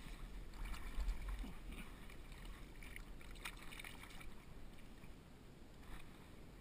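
Shallow water splashing and sloshing in short strokes as hands rinse in it beside a landing net, over a low rumble of wind on the microphone that is strongest in the first second or so.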